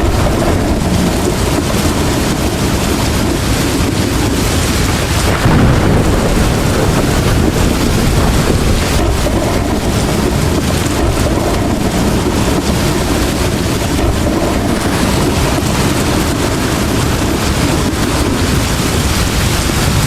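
Rumbling wind on the microphone mixed with heavy rain and the hiss of wet road, steady throughout, from riding a bicycle through a downpour. A brief louder surge comes about five and a half seconds in.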